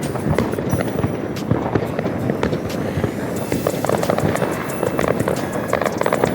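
A dense fireworks barrage: many rockets and firecrackers crackling and banging at once in a continuous rapid clatter, with a rising whistle about three seconds in.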